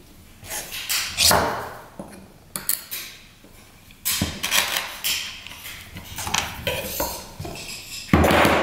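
Lead came being trimmed and worked around a glass pane with a glazier's knife and hand tool on a wooden bench: irregular knocks, taps and short scrapes of metal on lead and wood. This is the trimming of the came and the tamping of its freshly cut end.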